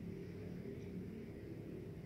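Cat lapping water from a glass bowl, faint under a steady low rumble.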